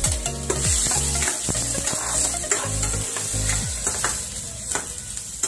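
Chopped onions sizzling in hot oil in a wok (cheenachatti) as they are stirred and sautéed, with frequent knocks and scrapes of a spatula against the pan.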